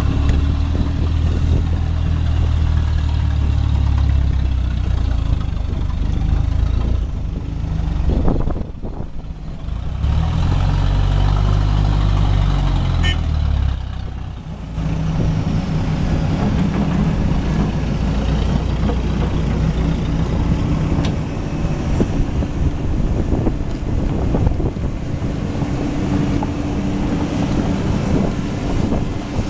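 Heavy equipment diesel engine running under load, revving up and back down about a third of the way in. The sound drops abruptly twice.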